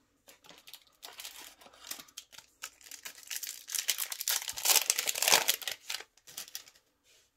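Yu-Gi-Oh! booster pack's foil wrapper crinkling and tearing as it is ripped open by hand. It is loudest a little past halfway through, as the pack is torn fully open and the cards are pulled out.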